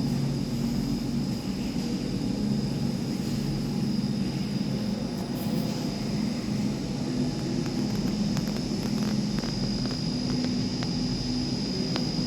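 Machinery in a water reservoir's machine room running steadily: a low, even drone with a thin, high whine above it and a few faint ticks.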